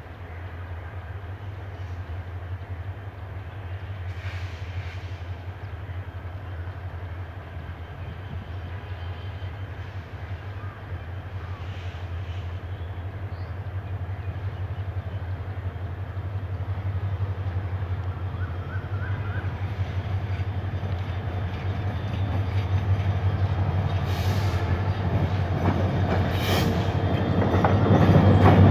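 Bangladesh Railway diesel-electric locomotive 3026 running as it hauls a passenger train out of the station, a steady low engine drone growing louder as it approaches and comes alongside near the end. A couple of short sharp clicks from the wheels come a few seconds before the end.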